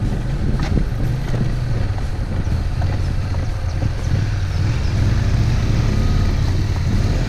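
Motorcycle engine running steadily at low road speed, its pitch shifting slightly with the throttle.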